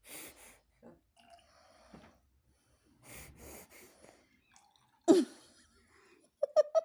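A baby sneezing, with breathy snuffles. The loudest sneeze comes suddenly about five seconds in and is followed near the end by a quick string of short voiced sounds.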